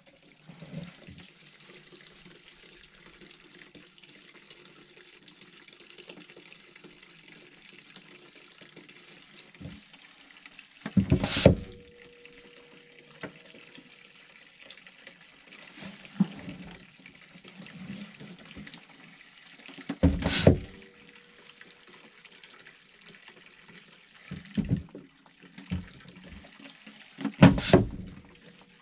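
Liquid running steadily, broken by three loud knocks or clunks spaced several seconds apart and a few softer ones.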